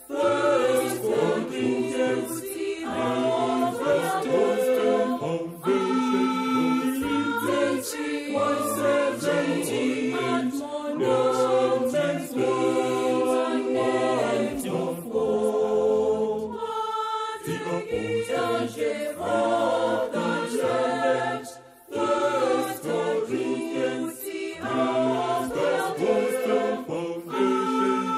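Mixed choir of men's and women's voices singing a gospel song in harmony over a steady beat; the singing breaks off briefly about 22 seconds in.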